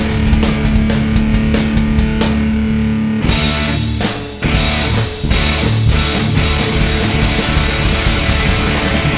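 Rock music: an instrumental passage for electric guitar and drums, with no vocals. A long held guitar note gives way about three seconds in to the full band playing harder, with a brief dip just after four seconds.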